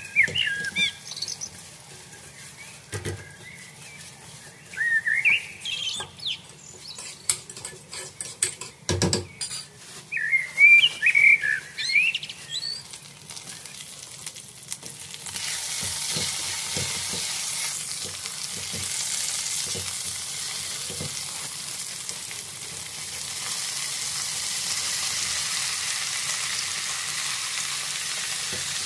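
Chopped onion frying in a nonstick pot, stirred with a silicone spatula: scrapes and knocks against the pot, with short high squeaky chirps three times in the first half. About halfway through a loud, steady sizzle starts as okra pods go into the hot oil, and it runs on while they are stirred.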